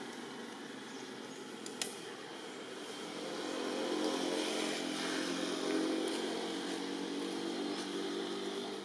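A motor vehicle engine, likely a motorcycle, grows louder about three seconds in, runs steadily for a few seconds, then fades. A single sharp click comes a couple of seconds before it.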